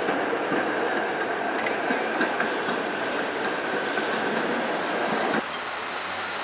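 PCC streetcar running on street track: steady rumble of steel wheels on rail, with scattered clicks and a held high tone. About five seconds in it cuts off suddenly and gives way to quieter road-traffic sound.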